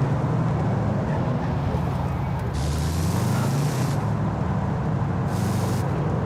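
1968 Dodge Dart Hemi Super Stock's 426 Hemi V8 running at a steady idle, with a few short stretches of hiss over it.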